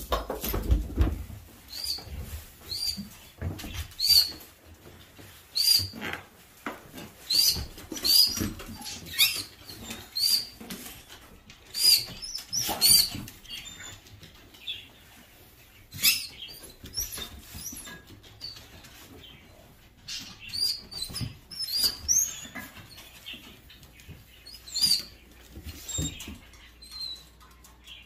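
Conure giving short, repeated chirping calls in clusters of a few at a time, with a lull about halfway through. A low thump comes right at the start.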